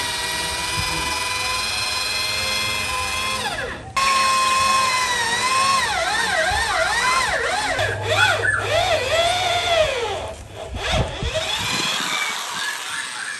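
Electric drill running and boring: a steady motor whine that stops briefly just before 4 s and restarts. From about 6 to 10 s the pitch dips and wavers as the bit bites and the motor loads, then it winds down around 11 s.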